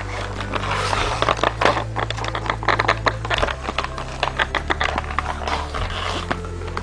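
Packaging being handled close to the microphone: a dense run of crackles, scrapes and clicks, busiest in the first half, as a model horse is worked loose from its box.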